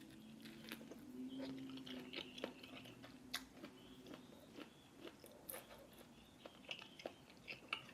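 Close-up, soft chewing of a beef meatball with tendons: irregular small wet mouth clicks and squishes.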